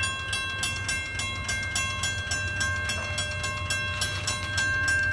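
Railroad grade-crossing warning bell ringing steadily, about three strikes a second, over a low rumble.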